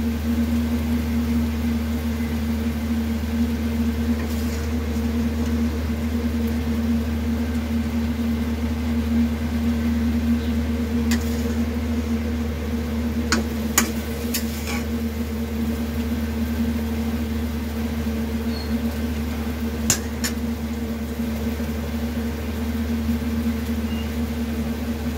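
A steady low mechanical hum, with a few light clicks and taps around the middle and once more later.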